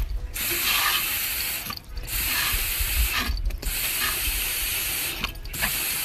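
A hard jet of water sprays out from under the rear of a Jeep with a loud, rushing hiss over a low rumble. It comes in long spurts, with short breaks about every one and a half seconds.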